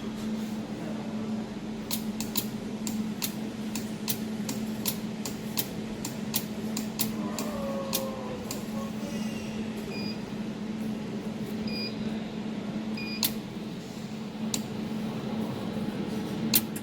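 Laser spot welder firing pulses: a series of sharp snaps, about two to three a second at first and sparser later, over the steady hum of the machine's built-in chiller. Three short electronic beeps come near the middle.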